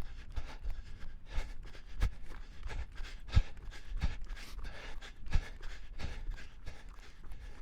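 A person panting hard while running, breath after breath, with regular footfalls thudding underneath.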